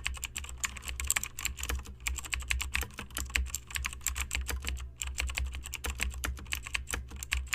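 Rapid, irregular clicking and clattering of small plastic parts, over a steady low hum.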